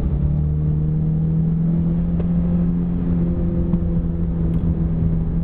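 A Mitsubishi Lancer GSR's 4G63 two-litre four-cylinder engine pulling hard at a steady, high note in one gear, heard from inside the cabin.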